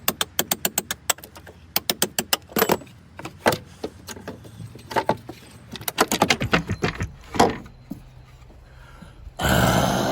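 Rapid sharp metallic taps and clinks, several a second, of a chisel working to pry a van's sliding-door track tray free. The taps thin out about seven seconds in, and a louder rushing noise starts near the end.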